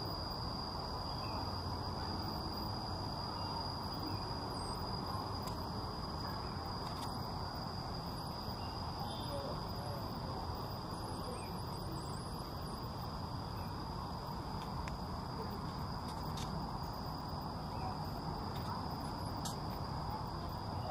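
Insects trilling steadily in one high, unbroken tone over a low, even background noise.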